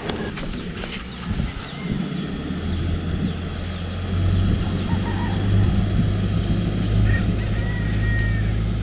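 Class A motorhome's engine pulling the coach out of soft sand under load, growing louder about four seconds in and then running steadily.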